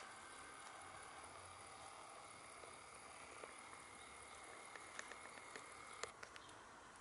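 Near silence with faint outdoor background, broken by a few small clicks and rustles near the end, from hens pecking and scratching in grass and leaf litter.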